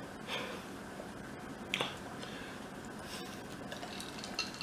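Eating sounds at a table: a few short, faint clicks and smacks of seafood being handled and chewed, the two clearest about a third of a second in and near two seconds in.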